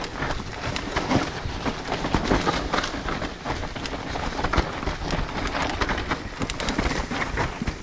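Mountain bike riding down a dirt trail covered in dry fallen leaves: tyres crackling through the leaves and over the dirt, with irregular knocks and rattles from the bike over bumps.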